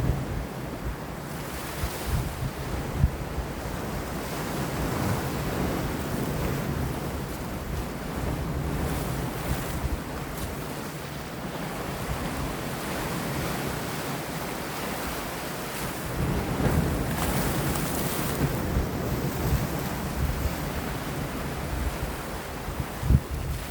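Sea waves washing and breaking against rocks, a continuous surf rush that swells and eases, with wind gusting and buffeting the microphone.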